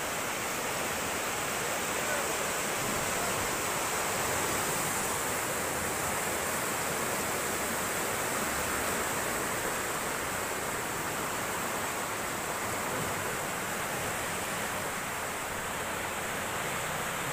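Steady rushing of a river in flood, brown floodwater pouring past under a bridge, an even noise that holds without a break.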